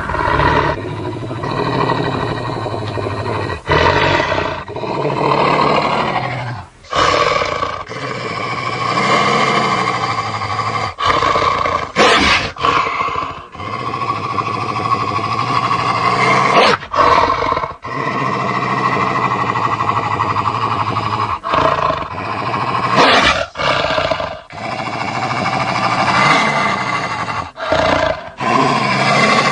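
A run of creature sound effects: loud roars and growls one after another, several of them cut off abruptly.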